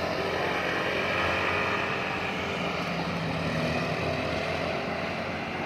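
Bus running, with steady engine and road noise and no horn blast.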